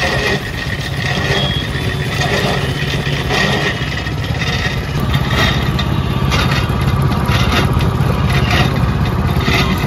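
Sugarcane juice machine running: its motor-driven pulley and steel rollers make a steady low hum, with a rough crackle recurring about once a second as cane stalks are crushed between the rollers.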